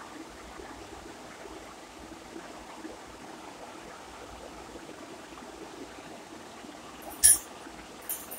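Faint steady hiss of room noise, with a sharp click about seven seconds in and a couple of softer clicks near the end.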